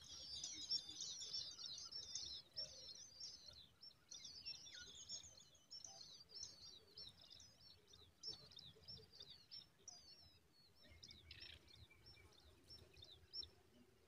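Tailorbird nestlings begging: a rapid chatter of thin, high-pitched cheeps that thins out over the last few seconds and stops.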